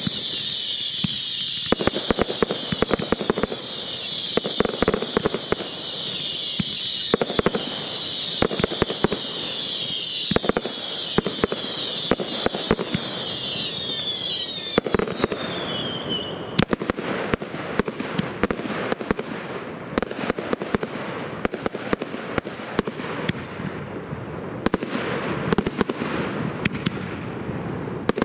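Professional firework display: rapid sharp bangs and cracks of shells and comets bursting. For the first half a dense high whistling of many falling pitches runs under them and cuts off suddenly. After that the bangs go on over continuous crackling.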